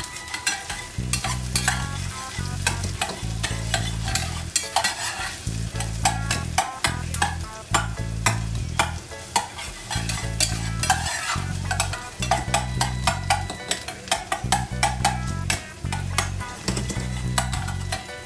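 Metal spoon and spatula scraping and tapping against a small metal saucepan in quick, uneven strokes while chopped onion sizzles in the pan.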